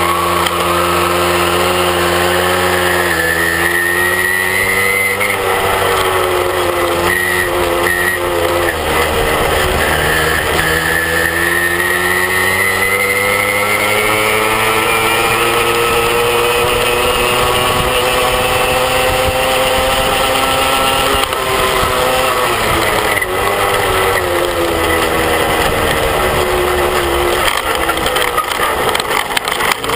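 Motorbike engine running under way, its pitch climbing and dropping back several times as the rider speeds up and eases off, with one long climb of about ten seconds in the middle.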